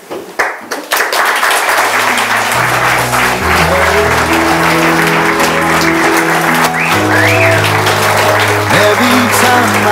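A roomful of people applauding, the clapping starting about a second in. Background music with steady sustained notes comes in under it from about two and a half seconds.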